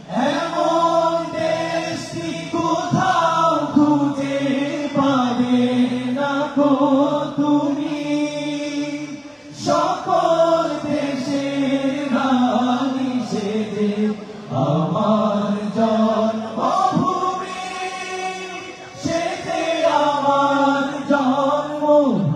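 A group of men singing an Islamic devotional song together into microphones. Long sustained melodic phrases are separated by brief breaks every few seconds.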